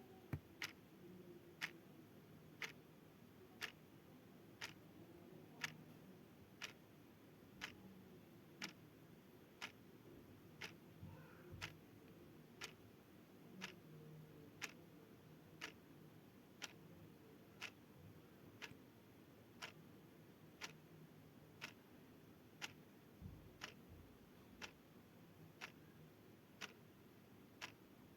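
Mechanical clock ticking steadily, about two ticks a second, alternating louder and softer in a tick-tock rhythm, over a faint low hum.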